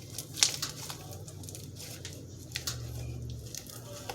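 Clear glitter slime being worked by hand, with a few short sticky pops and clicks, the sharpest about half a second in, over a low steady hum.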